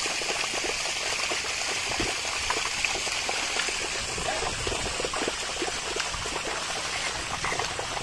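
Bullocks' hooves and a plough sloshing through a flooded, muddy field: a steady run of small splashes in the water.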